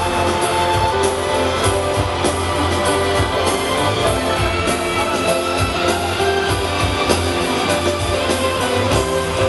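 Live pop music from a concert sound system, heard from within the crowd: a steady beat under sustained chords.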